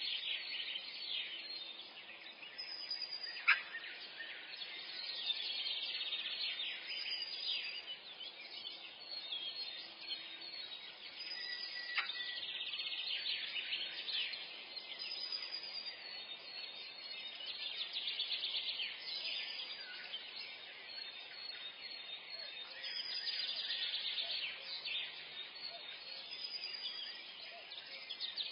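Many songbirds singing and chirping together in a forest morning chorus: dense high chirps and warbles, with a short high whistled note that recurs every few seconds. Two brief sharp ticks stand out, one about three and a half seconds in and one about twelve seconds in.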